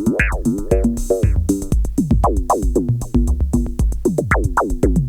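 Techno groove: a steady kick drum with hi-hat ticks under an Arturia MiniFreak synth line of quick notes, about four a second, each swooping down sharply in pitch.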